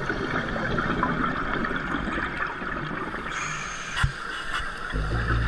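Scuba divers' exhaled air bubbles and surrounding water heard underwater through a camera's waterproof housing as a steady hiss, with one short knock about four seconds in. Background music comes in near the end.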